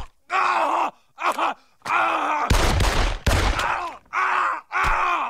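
A cartoon man's voice letting out a string of drawn-out cries and groans of pain, about six in a row, each trailing off in pitch. One louder, rougher cry comes about halfway through.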